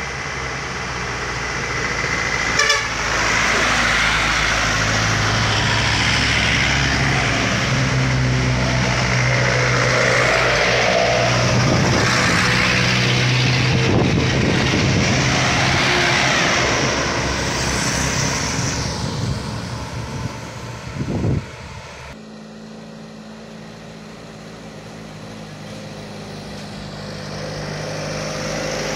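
Heavy diesel vehicles, loaded sugarcane trucks and a bus, passing close by on a hill road, engines working and tyres hissing as each swells and fades; a horn sounds. After an abrupt cut about 22 s in it is quieter, then a truck engine grows louder again near the end.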